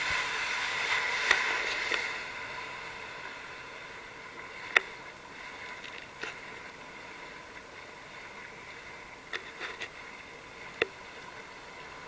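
Small waves lapping against a drifting watercraft's hull, with a louder rushing wash for the first two seconds and a few sharp slaps or taps later on.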